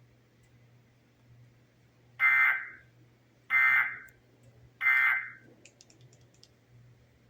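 Emergency Alert System end-of-message signal: three half-second bursts of SAME digital data tones, a little over a second apart, marking the close of the test broadcast.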